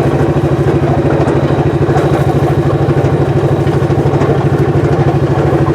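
Engine of a Mule utility vehicle running steadily with a fast, even pulse.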